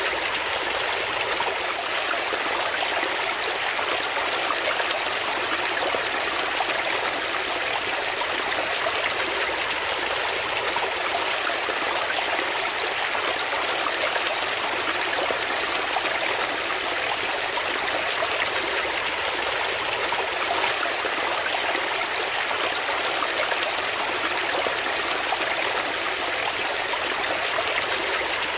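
Shallow rocky brook flowing and splashing over stones in small cascades: a steady, even rush of trickling water with no single splash standing out.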